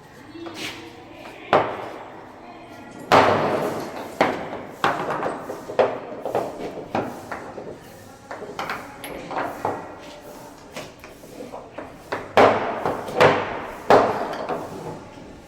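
Irregular clanks and knocks of plumbing pipes and fittings being handled and put together, each hit ringing briefly, in two busy clusters.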